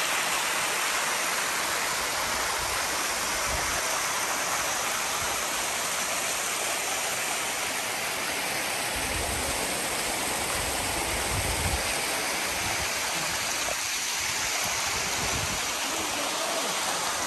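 Water rushing and splashing down a shallow cascade over travertine rock, a steady hiss of flowing water.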